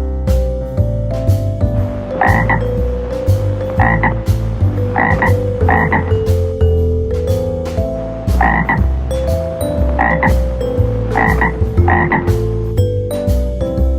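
Frog croaking: about eight short, irregularly spaced croaks over a light musical backing.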